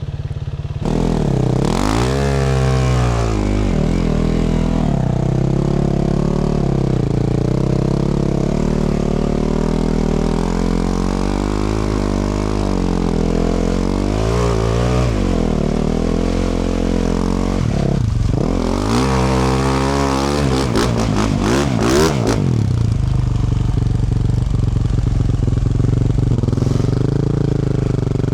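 2024 Yamaha YZ450F's 450 cc single-cylinder four-stroke engine, through a Yoshimura RS-12 exhaust, revving up and down as the dirt bike is ridden over steep, slippery ground. A burst of sharp, wide rev swings comes about two-thirds of the way through, and the engine runs steadier near the end.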